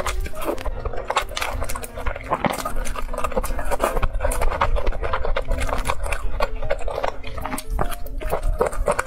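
Close-miked eating of spicy noodles: slurping and chewing with many quick, wet mouth clicks and smacks.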